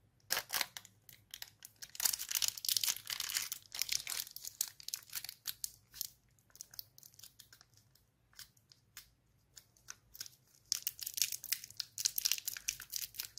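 White insulating tape being pulled, torn and pressed crinkling around the terminal end of a flat pouch battery cell, insulating its terminals. Rustling and tearing come in spells in the first few seconds and again near the end, with only scattered small crinkles in between.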